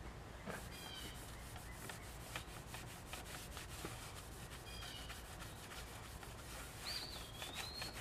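A cloth rag rubbing metal polish along a steel handsaw plate in quick back-and-forth strokes, working off leftover corrosion. Bird chirps come through about a second in and near five seconds, and a longer whistled call near seven seconds is the loudest sound.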